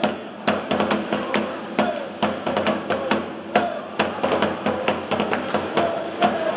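Rhythmic banging from the ice hockey crowd, about two sharp knocks a second, with faint chanting voices beneath.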